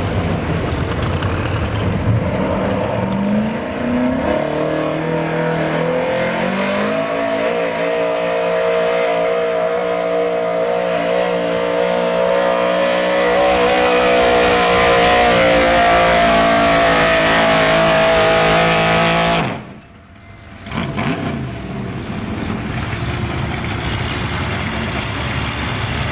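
Gas-engined Chevy 4x4 pulling truck under full load on the pull, its engine revs climbing in steps over the first several seconds, then held high and steady. About three-quarters of the way through the sound cuts off suddenly, leaving a quieter, lower engine running.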